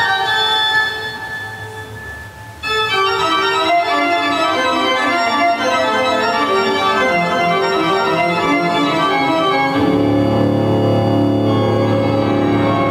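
Organ music: held chords that fade away about a second in and come back loud shortly before three seconds in, then a slowly descending run of notes, with deep low notes joining about ten seconds in.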